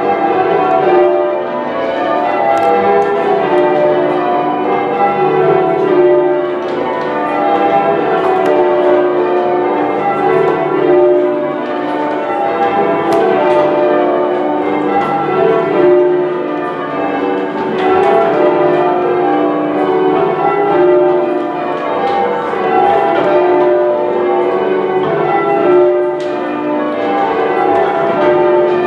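A ring of ten church bells being change rung, the bells striking one after another in a continuous, steady stream of overlapping notes.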